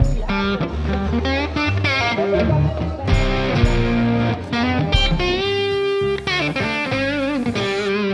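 Background music led by electric guitar over a steady bass line, with a long held guitar note a little past the middle followed by wavering notes.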